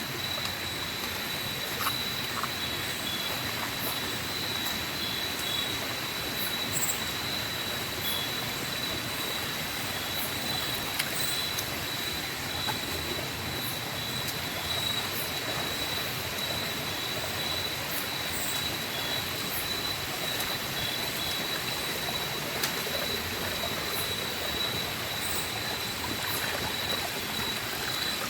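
Tropical forest insects, such as crickets or cicadas, holding one steady high-pitched whine, with scattered short high chirps and a constant hiss-like background.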